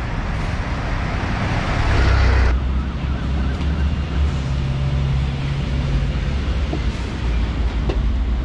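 Road traffic: vehicle engines running with a steady low rumble, and a louder rushing noise that cuts off abruptly about two and a half seconds in.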